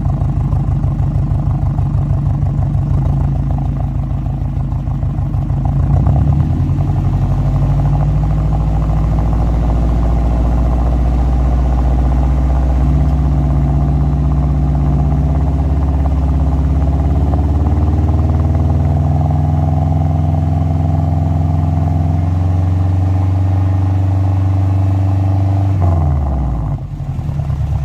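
Subaru Forester SG5's flat-four engine through a Kakimoto Kai Full Mega N1 exhaust with the silencer fitted. It idles with an uneven pulse, then about six seconds in the revs rise and climb slowly with a couple of steps. Near the end they drop back to idle.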